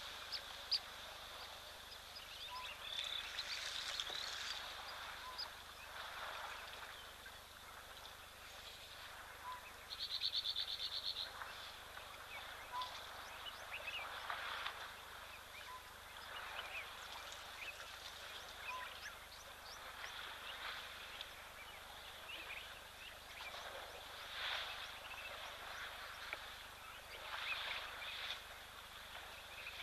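Natural bush ambience: scattered bird calls and chirps over a steady high hum, with a brief rapid trill about ten seconds in and a soft short note repeating every two seconds or so.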